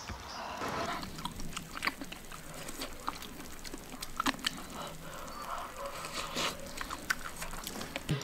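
Close-up eating sounds of a person chewing and slurping baked oysters off the shell, with irregular wet smacks and small clicks.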